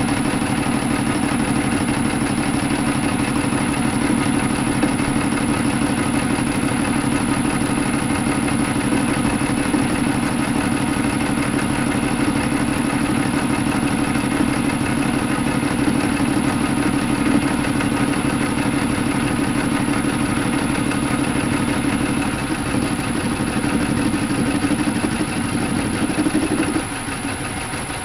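Metal lathe turning a flat bar held in a four-jaw chuck: an interrupted cut, with the tool clattering as it strikes the bar's flat sides on every turn over the steady running of the machine. Near the end the clatter stops and only a quieter steady running remains.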